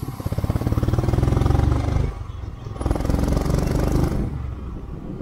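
Motorcycle engine pulling hard under throttle, its firing pulses growing louder over the first second and a half, dropping briefly just after two seconds, then pulling again before easing off about four seconds in.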